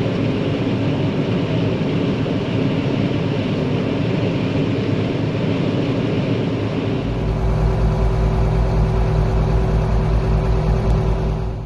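Heavy farm harvest machinery running. A dense mechanical rush lasts about seven seconds, then changes suddenly to a deeper, steady engine drone with a constant hum.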